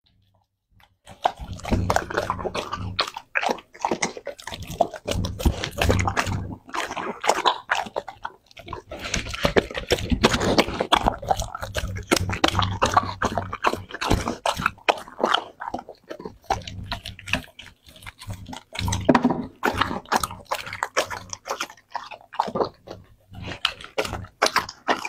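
Doberman eating raw meat from a plate: a fast, irregular run of bites and chews that starts about a second in.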